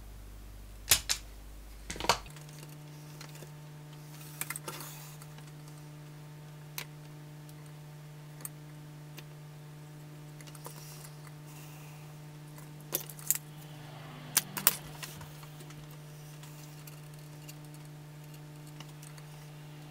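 Small hand tools and a soldering iron clicking and tapping on the metal tags of a vintage amplifier's transformer voltage selector: scattered sharp metallic clicks, in clusters about a second and two seconds in and again near the middle, over a steady low hum that starts about two seconds in.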